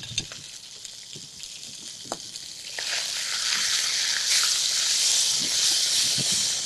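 Sausage sizzling in a frying pan, searing over high heat. The sizzle grows louder about three seconds in, with a few light clicks of the spatula against the pan.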